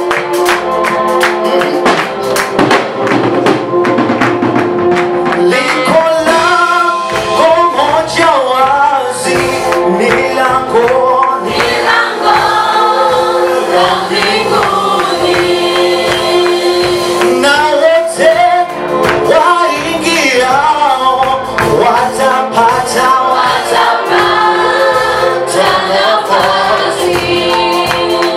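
Gospel praise song sung in Swahili by a group of singers over band accompaniment with percussion. The singing comes in about six seconds in, after an instrumental opening.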